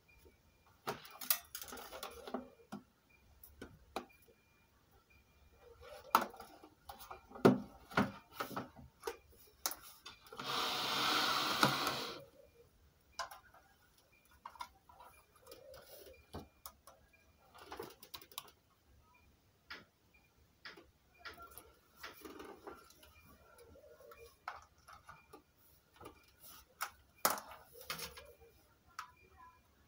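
Scattered clicks and knocks of hands handling audio equipment on a desk, with a burst of hiss-like noise lasting about a second and a half near the middle.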